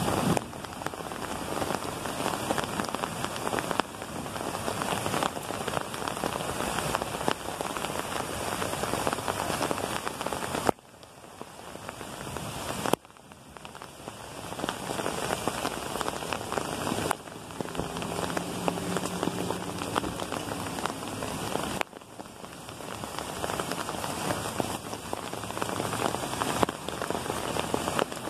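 Hailstorm: hail mixed with rain falling and striking the ground, pavement and brush, a dense steady hiss of many small impacts. It dips in level briefly a few times.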